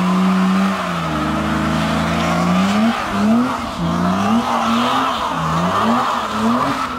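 BMW E34 5 Series doing a burnout: the engine is held high while the rear tyres spin and squeal. From about halfway through, the revs rise and fall in quick repeated blips.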